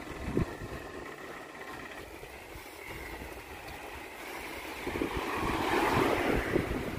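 Wind rushing over the microphone of a moving bicycle, with low road rumble; the rush swells louder about five seconds in.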